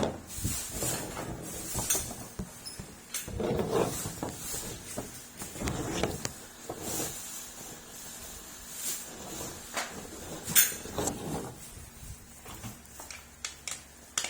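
Handling noises from assembling an office massage chair: irregular knocks, clicks and rustles of parts and packaging, with one sharper knock near the end.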